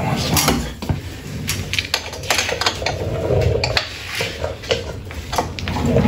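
Steel wrench clinking and clicking against the chain-adjuster lock nuts on a motorcycle swingarm as they are tightened: an irregular run of sharp metallic clicks and knocks.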